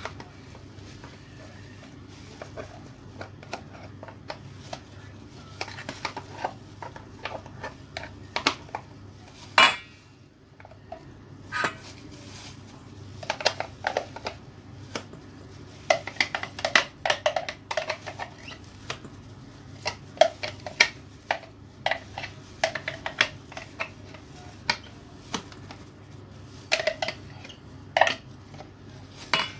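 Irregular clinks, taps and scrapes of a utensil against a stainless steel mixing bowl as ground shrimp paste is scraped out and worked in it, with one sharper knock about a third of the way in, over a low steady hum.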